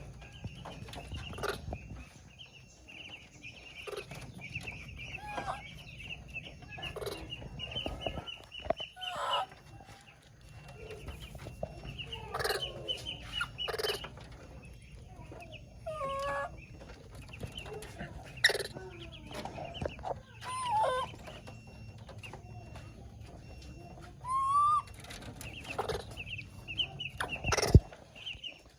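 Baby monkey giving short whistling calls now and then, some falling and one rising in pitch, among scattered clicks and knocks over a steady high-pitched trill.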